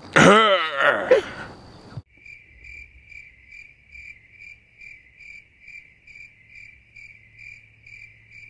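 A short laugh falling in pitch. About two seconds in, a cricket-chirping sound effect starts abruptly: even chirps about two and a half times a second over a faint hum, the stock gag for an awkward silence.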